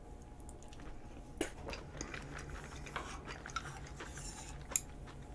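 A person chewing a mouthful of Japanese curry with rice close to the microphone, with a few soft wet mouth clicks spread through the chewing.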